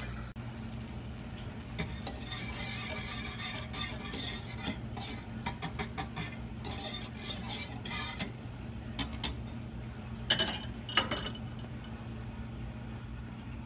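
Large metal balloon whisk stirring thickening cornstarch-and-almond-milk atole in a ceramic-coated pot, with quick runs of swishing, scraping and wire clinking against the pot to keep it from lumping. The whisking stops about two-thirds of the way through, leaving a steady low hum.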